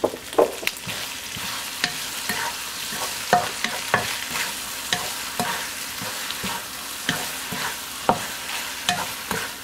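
Wooden spatula stirring and tossing taro cakes with pork and vegetables in a nonstick wok, giving irregular knocks and scrapes against the pan over a steady frying sizzle.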